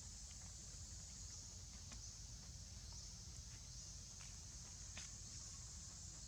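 Faint outdoor ambience: a steady high-pitched hiss with a low rumble underneath, and a few soft scattered clicks.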